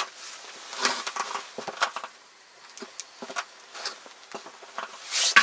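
Irregular knocks, taps and rustles of a just-caught crucian carp being handled and unhooked, with a sharp louder knock near the end.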